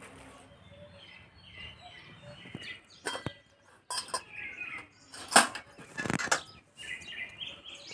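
Metal pots, a lid and a spoon clinking and knocking as they are handled on a tray, several sharp clinks from about three seconds in, the loudest about five seconds in. Birds chirp faintly in the background.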